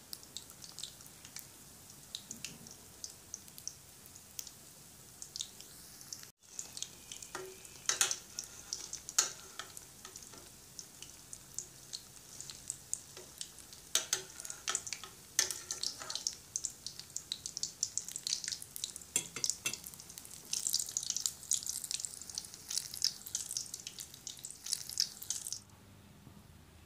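Egg-coated chicken bread rolls deep-frying in hot oil, with a steady crackling sizzle and frequent sharp pops and spits. The frying sound drops out for an instant about six seconds in and stops shortly before the end.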